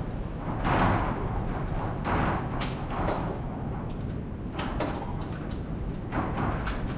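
Irregular clunks, scrapes and sharp clicks of tools and parts being handled while working on the car.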